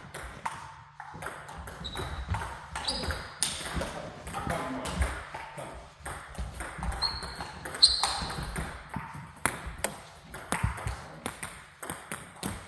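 Table tennis rally: the ball clicking off bats and table in quick, irregular succession, with a few short high squeaks among the clicks.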